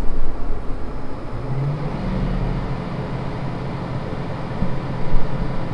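Case IH tractor's diesel engine running steadily, a low even drone with no change in speed.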